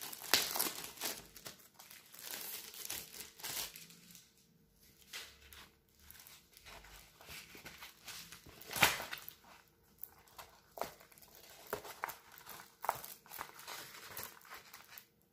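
Plastic wrapping on a diamond painting kit crinkling and rustling as it is unwrapped and the canvas pulled out, in irregular handling noises with one sharper, louder crackle about nine seconds in.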